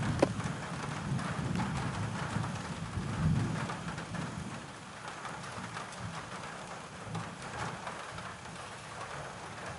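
Heavy rain drumming on a roof, heard from inside the building, with a low rumble in the first few seconds. The rain eases somewhat after about four seconds.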